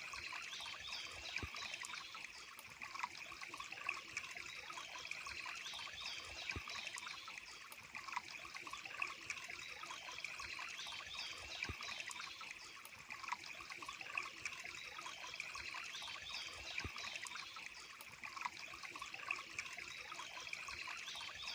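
Water trickling and running steadily, as from a small stream or waterfall, with high, repeated chirps over it.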